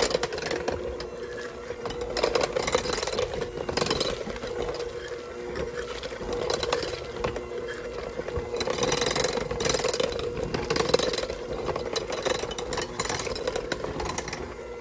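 Electric hand mixer running steadily, its beaters churning through cooked chicken in a slow-cooker crock to shred it. A steady motor whine comes with irregular clattering and knocking as the beaters hit the meat and the crock.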